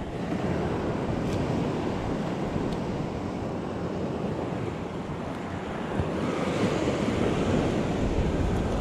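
Small waves washing up on a sandy beach, a steady hiss that swells a little near the end, with wind buffeting the microphone.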